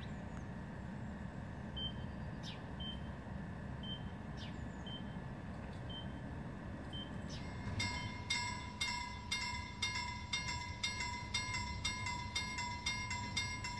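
Short high beeps about once a second over a low rumble. Then, about eight seconds in, a railway level crossing's warning bell starts ringing in quick, even strikes.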